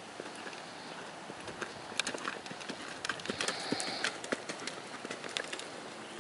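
A Quarter Horse gelding's hooves beating on sand arena footing at a lope: soft, irregular thuds and sharper clicks, louder and denser from about two seconds in.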